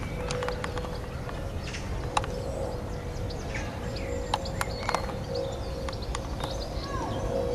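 Outdoor ambience: a low rumble of wind and handling on the microphone, with scattered sharp clicks and taps, the loudest a little over two seconds in and a cluster about four to five seconds in. Birds chirp in the background.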